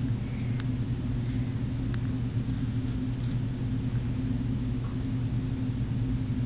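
A steady low hum, with a few faint clicks as a dachshund bites at an apple held in a hand.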